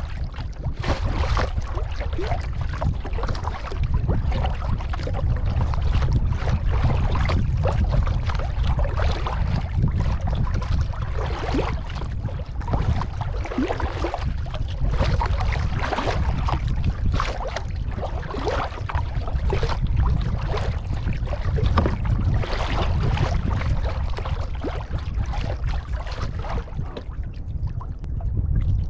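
Kayak paddle strokes splashing in the water, with water trickling off the blades, over a steady low rumble of wind on the microphone.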